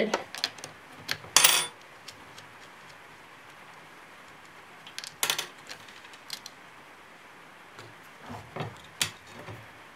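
Scattered small metal clinks and taps from a 5/16-inch wrench and the battery terminal bolts while a battery's terminals are being undone. A louder ringing clink comes about a second and a half in, and lighter clicks follow later.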